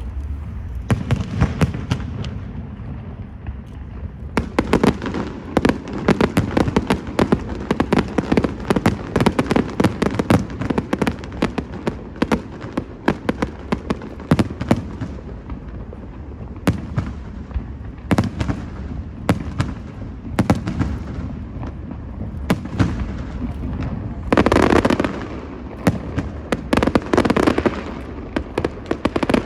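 Fireworks show going off: rapid, continuous crackling and popping bursts, with a loud, dense flurry about 24 seconds in.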